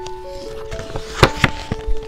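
Background music: a simple melody of held notes stepping up and down, with four sharp knocks in the second half, the first the loudest.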